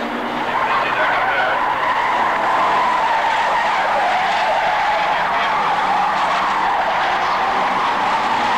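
Several superbanger race cars running hard round the track together, a loud, continuous drone of engines that slowly drops a little in pitch.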